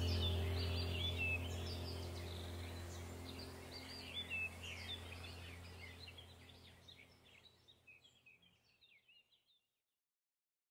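Background ambient track of birds chirping over a low steady drone, fading out to silence over the last few seconds.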